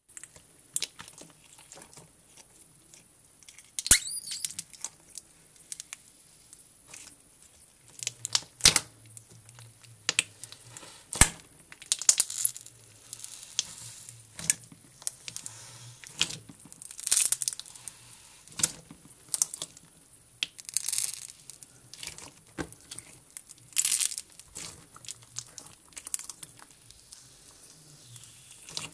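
Jelly cube slime (clear slime packed with soaked melamine sponge cubes) squeezed and crushed by hand, giving irregular sharp wet crackles and pops as the cubes are pressed.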